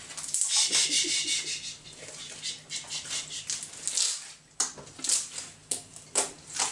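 Homemade slime being kneaded and stretched by hand, giving irregular sticky crackles and squelches, several a second.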